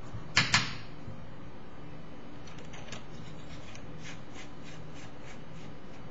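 Two sharp clacks of small metal parts being handled, then a run of faint, evenly spaced clicks, about three or four a second, as a part is twisted onto a 510 e-cigarette clear tank.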